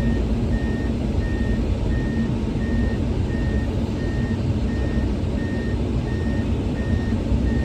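Komatsu 210 excavator's travel alarm beeping at an even pace, about three beeps every two seconds, over the steady low running of its diesel engine as the machine tracks off the trailer.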